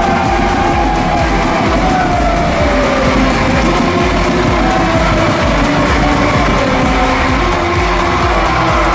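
Music with a steady beat, playing loudly throughout.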